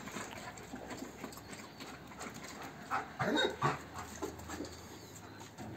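Belgian Malinois dogs moving about on a concrete floor: light footfalls and claw taps, with a few short dog sounds about three seconds in.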